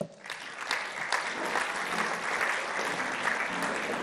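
Audience applauding. The clapping starts abruptly, builds within about a second and then holds steady.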